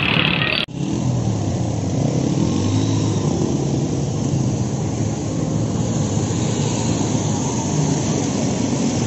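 Motorcycle and auto-rickshaw engines running in street traffic on a flooded road, with water splashing under the wheels. The sound changes abruptly at a cut less than a second in.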